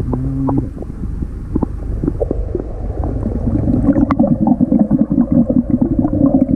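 Sound heard underwater: scattered clicks and water movement, then from about three seconds in a dense, fast bubbling as a swimmer breathes out underwater while gliding.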